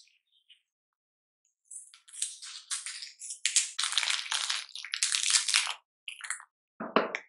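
Plastic wrapper crinkling and tearing as it is peeled off a block of Monterey Jack cheese, then a short thud near the end.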